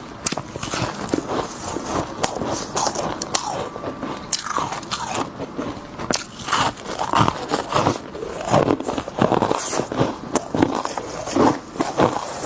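Refrozen freezer frost being bitten and chewed close to the mouth: a dense, irregular run of crisp, icy crunches. Near the end a hand digs into a heap of the frost.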